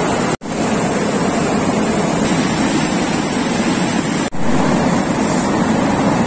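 Mountain river rushing loudly over boulders and rapids, a steady roar of water. It breaks off for an instant twice, under a second in and about four seconds in.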